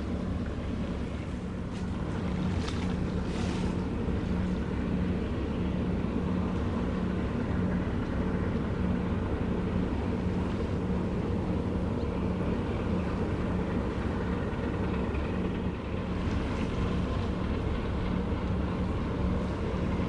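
A ship's engine droning steadily, a low hum that holds one pitch, with wind noise on the microphone and a brief hiss about three seconds in.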